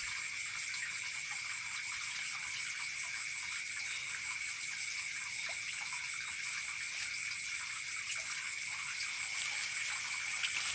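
Steady night-time chorus of insects: an even high hiss with a constant shrill tone running through it. Faint light rustles of leafy plants being handled sound over it.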